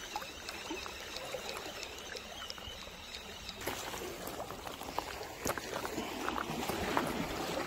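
Seawater lapping and trickling among the rocks of a seawall, with a few sharp clicks in the second half.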